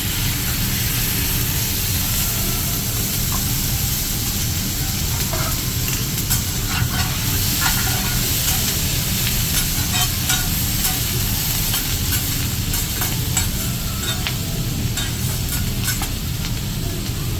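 Food frying on a teppanyaki hibachi griddle: a steady sizzle with scattered sharp clicks and taps.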